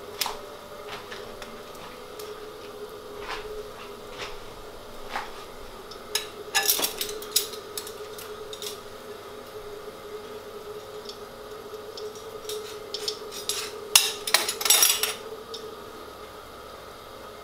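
Kitchenware clinking and knocking in two short flurries, about six seconds in and again, louder, about fourteen seconds in, over a faint steady hum.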